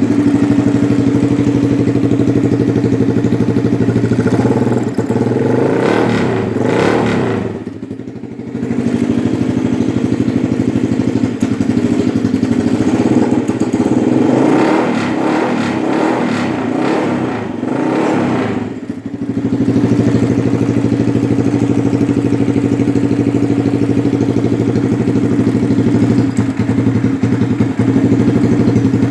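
Small car engine running just after its first start on a Megasquirt 3 engine controller, idling steadily. It is revved twice, about five seconds in and again around fifteen seconds in, each time rising and falling back to idle.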